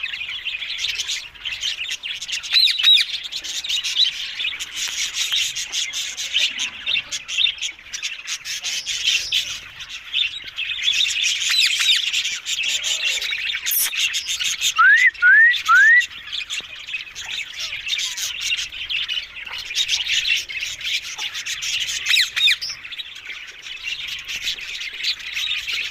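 Green ringneck parrots (rose-ringed parakeets) squawking and chattering without a break, with three quick rising whistles about halfway through.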